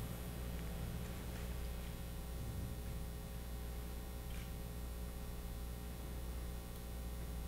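Steady low hum of room tone with a few faint, brief soft sounds scattered through it.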